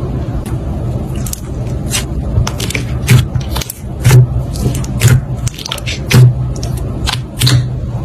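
Slime being pressed and worked, giving many sharp crackling pops and clicks over a low pulsing bass beat that swells about once a second.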